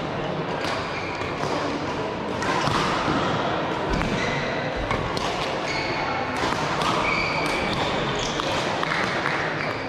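Indoor court match in play: shoes squeaking briefly and repeatedly on the hall floor, with sharp hits at irregular intervals, over voices echoing in a large hall.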